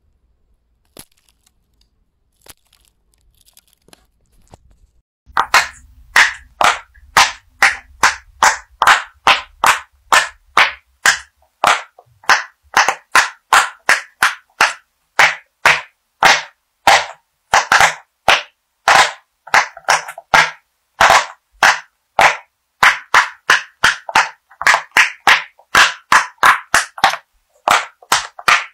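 Silicone pop-it fidget toy bubbles pressed one after another, a steady series of sharp pops about two a second that starts about five seconds in, after a few faint clicks.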